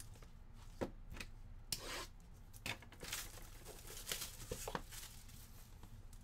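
A sealed box of Panini Court Kings trading cards being torn open: a run of short tearing and crinkling sounds from its wrapping, in bursts about a second in and again for a couple of seconds near the middle.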